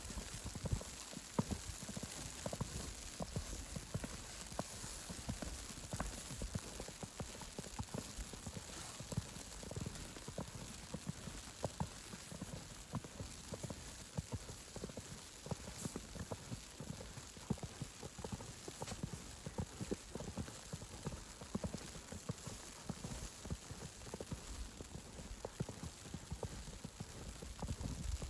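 Footsteps crunching through fresh snow, one after another at walking pace, over a steady hiss.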